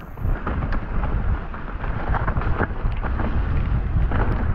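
Low wind rumble on a mountain bike's action-camera microphone while riding a dirt trail, with tyre crunch and short clicks and rattles from the bike over small rocks and roots.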